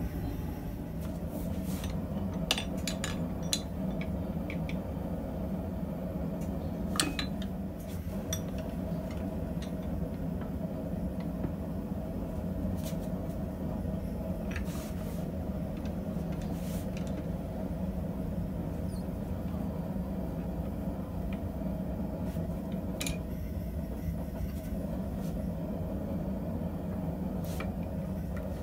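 Scattered light metal clinks and taps as blacksmith tongs and a twisting tool handle hot steel in a vise, over a steady low mechanical hum.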